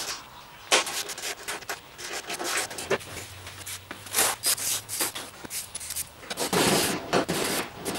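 Irregular handling noises from working on a zero-turn mower's body panels: sharp knocks and clicks mixed with rubbing and scraping, busiest near the end.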